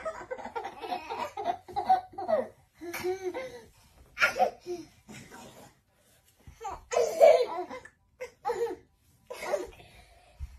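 A baby laughing in repeated bursts, with a short break partway through.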